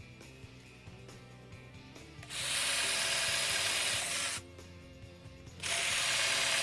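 Power drill running in two bursts, the first about two seconds long and the second about a second long near the end, each starting and stopping sharply, as it drives into wood.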